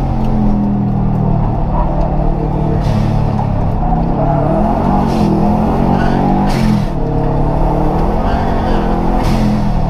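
Rally car engine heard from inside the stripped, roll-caged cabin, its pitch rising and falling as the car accelerates, changes gear and slows between corners. A few short sharp noises come through, roughly every three seconds.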